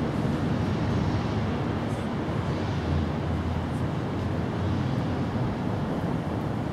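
Steady low rumbling background noise outdoors, with no distinct events.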